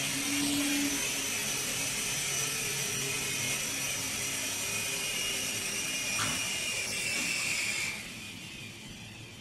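Small electric motors and rotors of a Cyclone 5009 mini infrared remote control helicopter whining steadily in flight; the high whine drops away sharply about eight seconds in.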